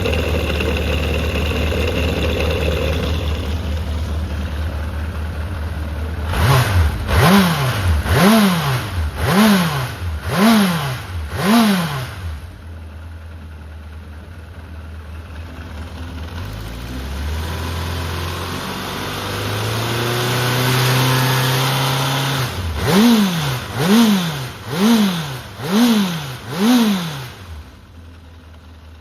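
Honda CB750F (RC04) air-cooled inline-four engine idling, then revved in about six quick blips, the revs falling back each time. The revs then climb slowly and hold for a few seconds, followed by five more blips before the engine drops back near the end. The seller describes the engine as running well with no abnormal noise.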